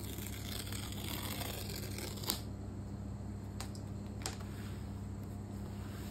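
Paper tear-strip on an Apple laptop box being pulled off, a rasping tear for about two seconds that ends in a sharp snap, followed by a couple of light clicks as the cardboard box is handled.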